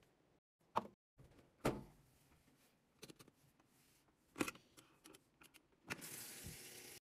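Handling knocks and clicks at a top-loading washing machine's control dial: three sharp knocks, scattered light clicks, then a steady hiss starting about a second before the end.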